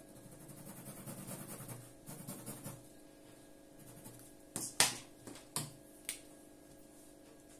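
Black felt-tip pen scratching across watercolour paper in quick hatching strokes. About halfway through, a few sharp clicks, the loudest first, as the pen is put down on the table.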